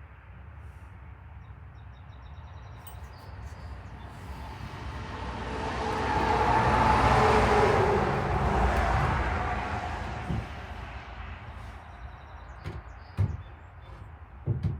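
A vehicle passing by, its noise slowly swelling to a peak about halfway through and fading away again, with a few light knocks near the end.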